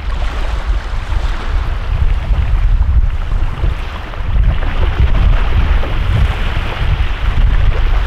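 Wind buffeting the microphone with a steady low rumble, over small waves washing onto a sandy lakeshore.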